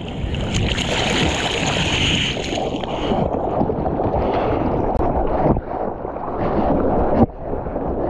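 Water rushing and splashing against a surfboard and a camera at water level as the board moves through the sea, with wind buffeting the microphone. A hissy spray sound is strongest for the first few seconds, and the sound drops out suddenly for a moment twice near the end.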